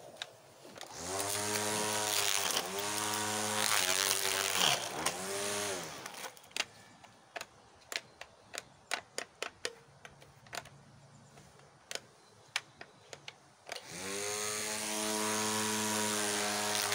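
Cordless electric string trimmer's motor whining as it spins up and slows down in three short spurts, then stopping for several seconds. During the stop there is a run of sharp clicks. It then starts again and runs steadily near the end. The trimmer keeps cutting out, which the user puts down to its battery flagging.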